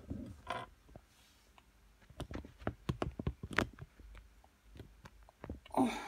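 Faint, scattered light clicks and taps of items being handled on a desk, coming most thickly between about two and four seconds in.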